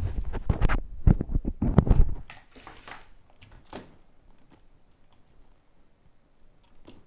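Bench handling noise: a quick run of knocks, bumps and scrapes as an opened iPad is slid across the work mat and a thermal camera in a small stand is set down. After about two seconds it thins to a few faint clicks and taps as the camera's cable is plugged in.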